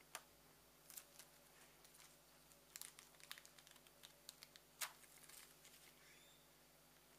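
Thin silver metallized plastic film crinkling and crackling as it is bent and handled: faint scattered crackles and clicks, busiest around three seconds in, the loudest just before five seconds in.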